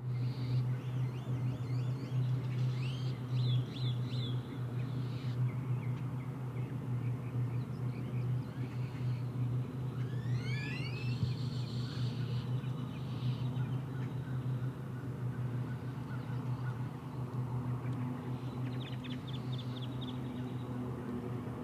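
Outdoor ambience: birds chirping and calling now and then, with a quick run of rising calls about halfway through and a short trill near the end, over a steady low hum.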